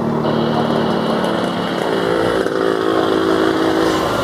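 General Electric GE90 turbofan engines of a Boeing 777-300ER running at low thrust before takeoff: a steady hum with several steady tones that shift in pitch about halfway through.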